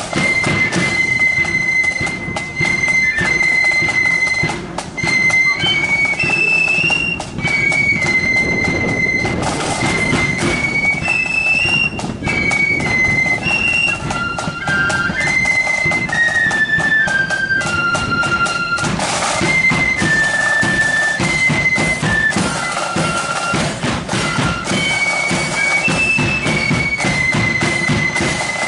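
Marching flute band playing a tune, the flutes in unison on one high stepping melody over steady drumbeats.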